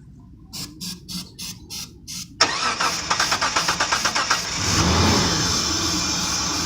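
Car engine cranking on the starter with a rhythmic whir, catching suddenly about two and a half seconds in, revving up and back down around five seconds, then running steadily. It fires on carburetor cleaner because the fuel pump is bad.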